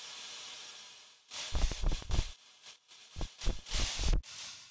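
Synthesized cloth sound, the rough target signal made by parametric friction and crumpling sound models: a smooth hiss that swells and fades, then a run of irregular noisy bursts with a deep low end, then a fading hiss.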